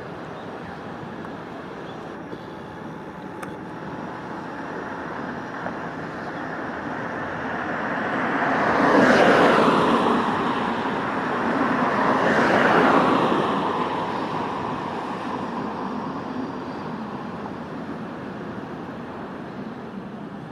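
Two road vehicles passing close by one after the other, about three seconds apart, each rising and falling away with a dropping pitch, over steady traffic noise.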